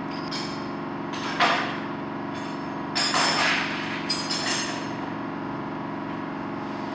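Metal tools knocking and scraping on a marine diesel engine during anode replacement, over a steady machine hum. A sharp knock comes about a second and a half in, then more knocks and scraping around three and four seconds in.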